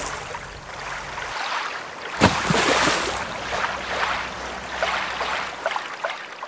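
Rushing, splashing water in surges: the sound fades, then a sudden loud splash about two seconds in, dying away slowly with small crackling droplets throughout.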